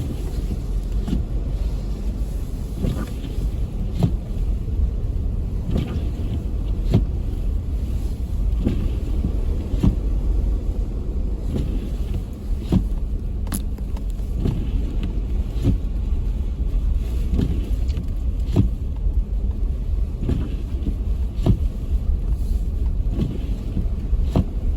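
Blizzard wind buffeting the microphone: a steady, loud low rumble, with frequent irregular sharp ticks.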